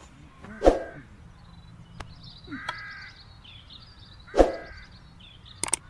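A crow cawing twice, about three and a half seconds apart, with a softer call between and faint high chirps. Two sharp clicks near the end.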